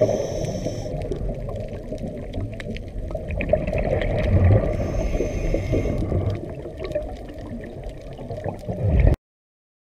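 Low rumbling noise without speech, which cuts off abruptly about nine seconds in.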